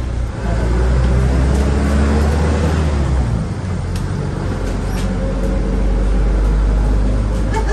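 City bus engine and drivetrain heard from inside the cabin as the bus pulls away, a steady low rumble whose pitch climbs as it gathers speed, shifting about three seconds in and then running steadily.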